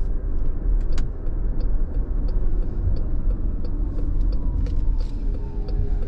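Inside the cabin of a 2020 Chrysler Pacifica Hybrid, low road rumble from the slowing minivan and the faint whine of its hybrid electric motor, falling in pitch as it decelerates. Over this, a turn signal ticks steadily about one and a half times a second as the van pulls over to stop.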